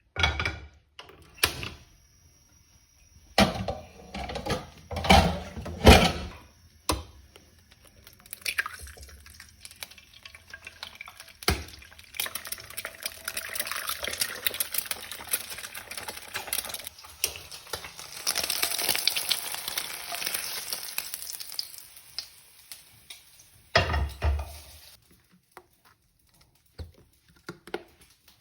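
Instant noodles being stirred and tossed with utensils in a bowl. Several sharp knocks and clinks of the utensils against the dish come in the first few seconds, then about ten seconds of continuous stirring noise, and one more knock near the end.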